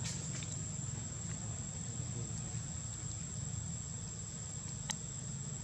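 Insects droning in one steady high-pitched tone over a steady low rumble, with a single sharp click near the end.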